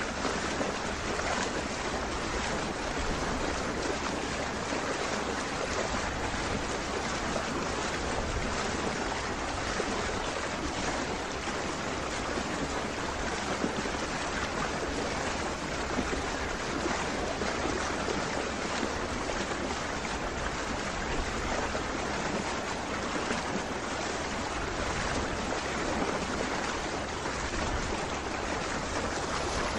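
Steady rushing water from a boat moving across a lake, its wash running along the hull.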